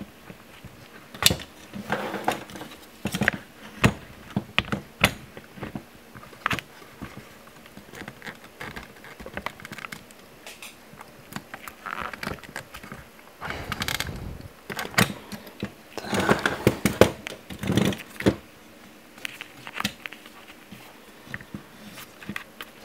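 Irregular clicks, knocks and rattles of hardware being handled and set down on a workbench, with a few short scraping or rustling patches.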